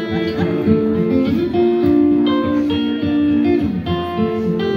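Acoustic guitar played live, strummed chords ringing out over repeated strokes.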